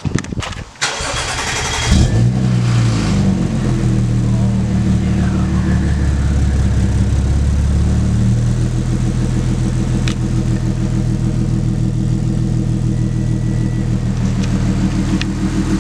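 Audi S4 engine started for the first time after an oil change: the starter cranks briefly, the engine catches about two seconds in with a rise in revs, then settles into a steady idle.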